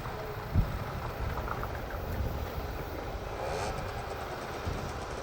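Low, steady vehicle rumble at a railroad crossing, with one short thump about half a second in.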